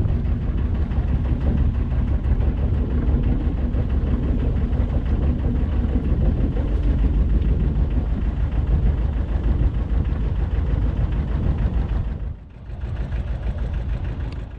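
Small motor boat's engine running steadily under way, with a fast, even throb. It drops away briefly about twelve seconds in.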